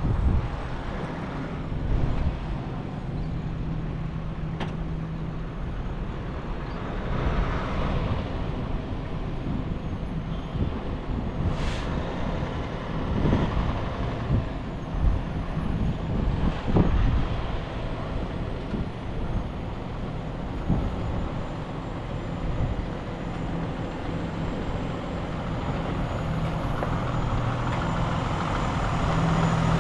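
Heavy diesel truck engine running steadily, with scattered knocks and clanks; the engine grows louder near the end.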